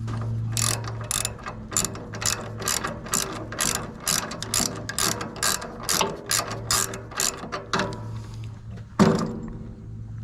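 Socket ratchet with a shallow 19 mm socket clicking in repeated strokes, about three a second, as it tightens the belt tensioner bolt on a Wood-Mizer LT15 sawmill, taking up a loose belt. One loud knock near the end.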